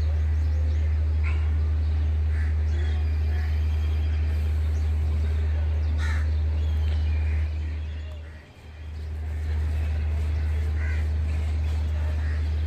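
Crows cawing here and there over a steady low rumble, which fades away briefly about eight and a half seconds in.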